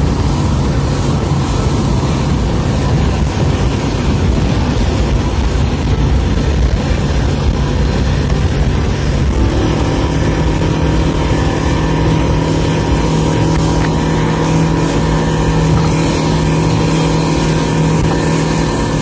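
Yamaha 115 outboard motor running at speed and holding a steady pitch, mixed with the rush of wind and churning wake water. About halfway through, the engine note becomes clearer and fuller.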